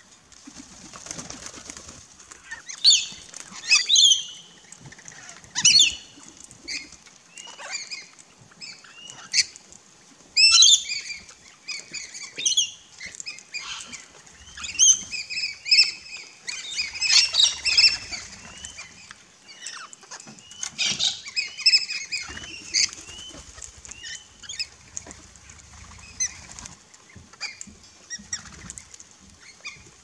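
Australian parrots at a feeder calling with many short, shrill screeches in bursts, loudest around 3 to 4, 10 to 11 and 17 to 18 seconds in, with wings flapping among them.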